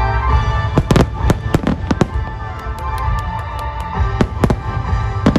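Aerial firework shells bursting in a quick series of sharp bangs, starting about a second in and coming in clusters, over music with long held tones.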